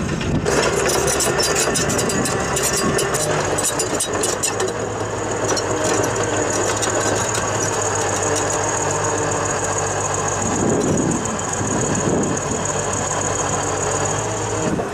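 Diesel engine of a tracked drainage-plough machine running steadily, with a thin high whine over it. A rapid clatter of clicks runs through the first four seconds or so.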